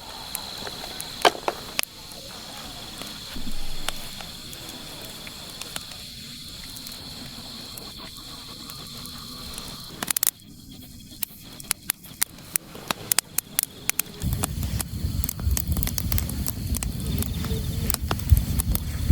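Crickets chirping in a steady high drone with scattered ticks. The sound changes abruptly about ten seconds in, and from about fourteen seconds strong wind rumbles low on the microphone while many sharp ticks of rain patter over it.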